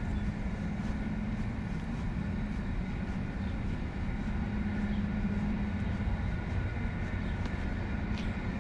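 Steady low mechanical hum with faint, even whining tones above it. Faint footsteps on pavement tick through it about once or twice a second.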